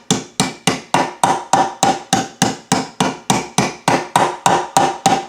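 A hammer tapping a new crankshaft main bearing into the 2001 Yamaha WR426F's aluminium crankcase with quick, even blows, about five a second. Each strike gives off a short metallic ring.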